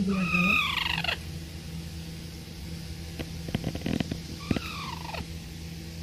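A parakeet giving two falling calls, one about a second long at the start and a shorter one about four and a half seconds in, with a few sharp clicks in between.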